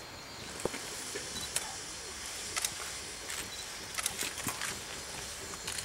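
Shay geared steam locomotives standing together, venting steam with a steady hiss that sets in about half a second in, with scattered sharp clicks.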